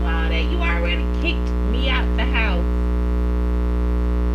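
Steady electrical mains hum in the recording, a dense stack of constant tones, with a voice talking over it for about the first two and a half seconds.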